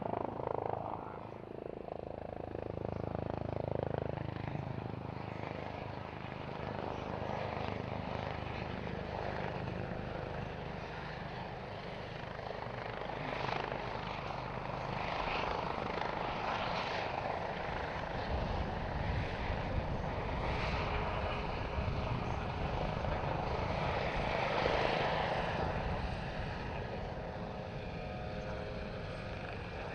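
Airbus H145M twin-turbine helicopter (two Arriel 2E turboshafts, Fenestron tail rotor) flying a display, its rotor and engine noise rising and falling as it manoeuvres. From just over halfway through, a fast low beat of the rotor comes through.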